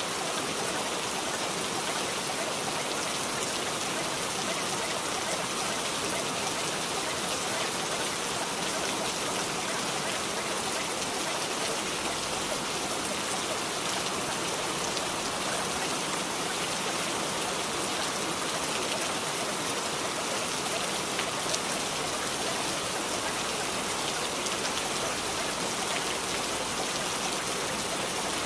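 Steady rain: an even, unbroken hiss of falling rain.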